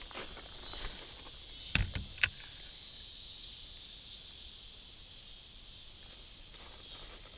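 Steady high-pitched drone of insects, with two sharp clicks about two seconds in.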